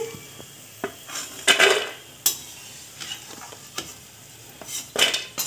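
Namak pare frying in hot oil in a metal kadhai, a steady sizzle, while a perforated steel ladle scrapes and clinks against the pan several times as the crisp-fried pieces are lifted out.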